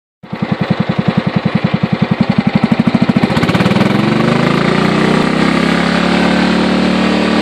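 Yard-Man lawn tractor's 16-horsepower Kohler Command engine running, at first slow with a fast, even pulsing beat, then speeding up about three seconds in and settling into a smooth, steady, higher-pitched run.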